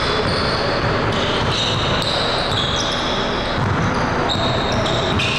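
Basketball dribbled on a hardwood gym floor during a pickup game, with many short, high-pitched squeaks of sneakers on the court, all in the echo of a large hall.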